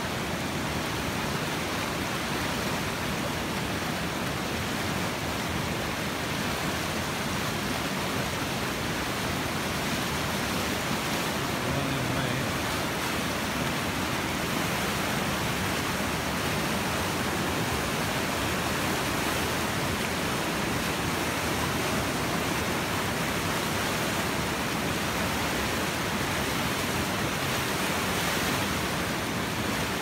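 Mississippi River running water, a steady, unbroken rushing.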